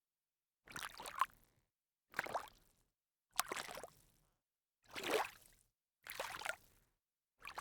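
A sneaker stepping into shallow water: six separate splashing steps, each a sharp splash that trails off, about one and a half seconds apart.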